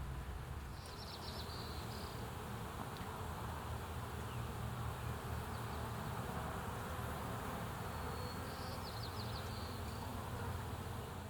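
Honeybees buzzing around a hive, a steady, even hum, with two short high chirping trills about a second in and near the end.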